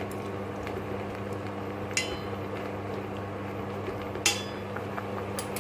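A metal utensil clinks twice against a pot of boiling spinach leaves, once about two seconds in and more sharply just after four seconds, each with a brief ring. Under it runs a steady low hum.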